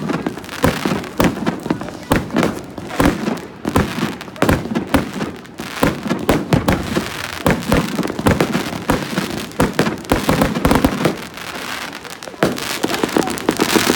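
Fireworks exploding overhead: a dense, rapid run of bangs and crackling that eases off briefly near the end before the crackling picks up again.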